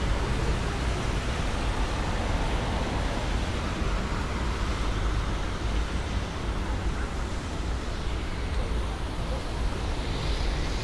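Steady city traffic noise on wet streets: a continuous low rumble with a hiss over it, mixed with light rain.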